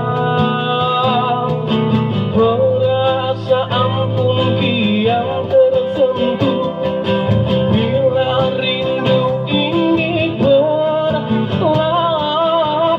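A man singing a slow Malay ballad into a microphone while strumming a cutaway acoustic guitar.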